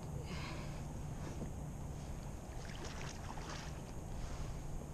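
Hooked red drum splashing at the surface beside a kayak, in short bursts about a third of a second in and again around three seconds in, over a steady rumble of wind on the microphone.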